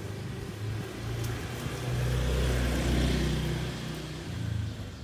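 A motor vehicle passing nearby: a low engine hum that grows louder to a peak in the middle and then fades away.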